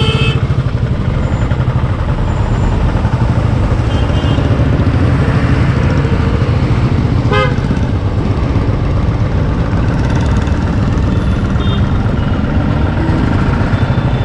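Motorcycle engine running at low speed with a steady low rapid pulsing, among traffic, with several short vehicle horn toots: one right at the start and others about four, seven and twelve seconds in.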